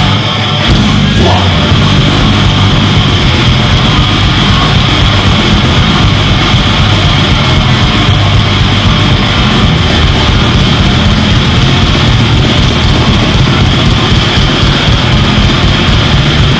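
Heavy metal band playing live at full volume: distorted electric guitars, bass and drums.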